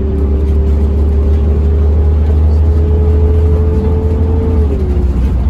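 Volvo B10TL Super Olympian double-decker bus under way, heard from on board: a heavy engine rumble with a whine that rises slowly as the bus picks up speed, then dips sharply near the end.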